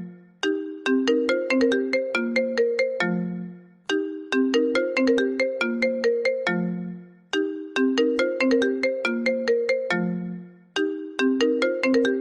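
A phone ringtone: a short, bright melody of quick struck notes that ends each time on a longer low note, looping about every three and a half seconds with a brief gap between repeats.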